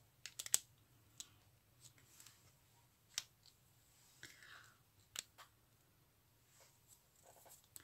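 Faint scattered clicks and light taps of hands working over a paper craft piece, picking off strings of glue, with a quick cluster of clicks in the first second and single ones after.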